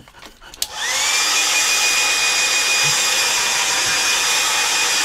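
A click, then a small handheld hairdryer's motor whines up to speed within the first second and blows steadily, drying the ink on a drawing before the pencil lines are erased.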